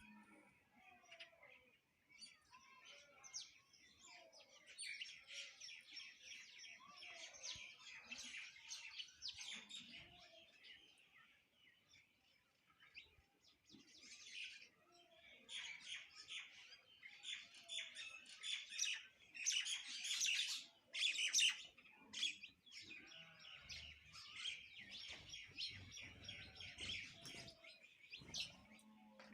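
Many small birds chirping together in rapid, overlapping high calls, busiest and loudest about twenty seconds in.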